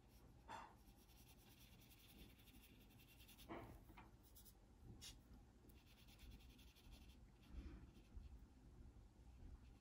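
Near silence with faint, soft strokes of a small watercolor brush on paper, a few brief swishes.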